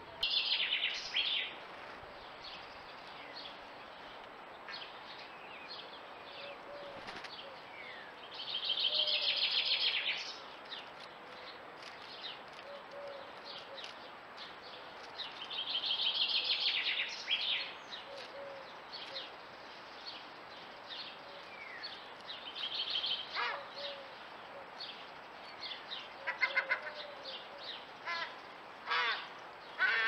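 Birds singing: three loud, high chattering phrases of about two seconds each, one at the start, one about nine seconds in and one about sixteen seconds in, with many short chirps and clicks between and a quicker run of calls near the end.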